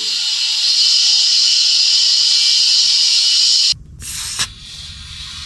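Steady, loud hiss that stops abruptly a little under four seconds in. It is followed by a quieter low rumble with a short burst of hiss.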